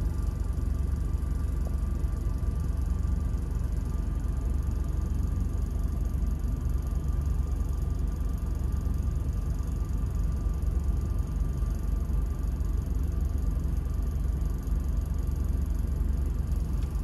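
Steady low rumble of a stationary vehicle idling, with a faint steady whine above it.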